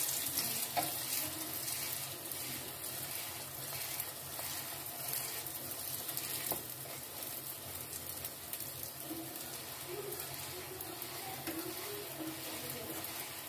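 Laccha paratha frying in ghee on a hot tawa: a steady sizzling hiss with light crackles, while a spatula presses and turns the bread.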